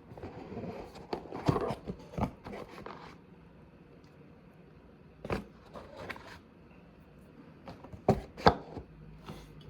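Scattered light knocks, clicks and scrapes of small objects being handled, in a cluster over the first few seconds, a couple more around the middle, and another few near the end.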